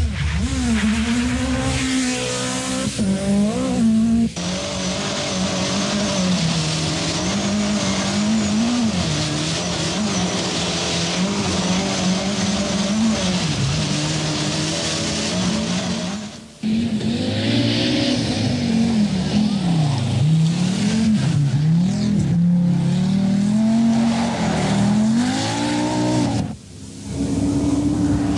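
Rally car engines revving hard and changing gear, the pitch climbing and dropping again and again, with some tyre noise. The clips are cut together, so the sound drops out briefly twice, about sixteen and twenty-six seconds in.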